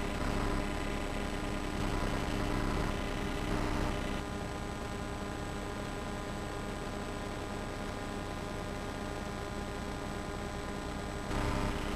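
Steady hiss and electrical hum with a thin high whine, the noise floor of an old videotape's soundtrack, a little louder and less even for the first four seconds; no distinct game sounds stand out.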